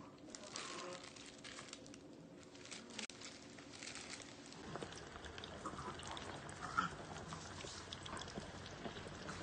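Plastic-gloved hands rustle as chicken pieces are tossed in arrowroot powder. Then, after a cut, hot oil sizzles steadily in a deep fryer as coated karaage pieces go in. A sharp clack comes about two-thirds of the way through.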